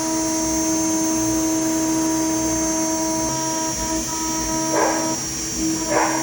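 CNC router spindle running with a steady high whine while milling an HDPE sheet. Two short, louder bursts of cutting noise come near the end.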